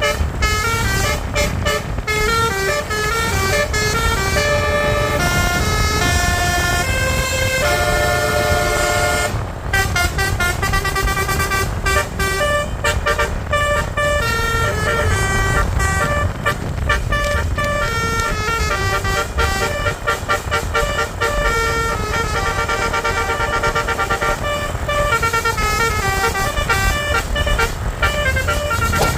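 Indonesian bus 'telolet' multi-tone horn (Basuri) played almost continuously, running through melodies of short stepped notes, over the low rumble of the bus engine and road noise.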